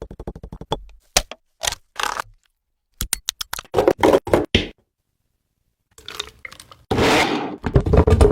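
A quick run of sharp clicks and knocks, then crunching and scraping handling noises. A second or so of silence follows before a longer scrape near the end.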